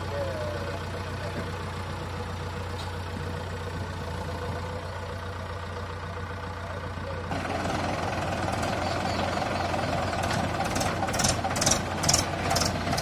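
Diesel engine running steadily: a JCB 3DX backhoe loader at work. About seven seconds in, the sound changes suddenly to a louder, nearer engine: the four-cylinder diesel of a Mahindra 585 DI tractor idling. Near the end, a regular ticking comes in, about three times a second.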